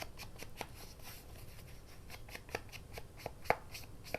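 Paper-craft handwork on paper: a quick run of light sharp taps or snips, about four a second, sparser about a second in and sharper in the second half.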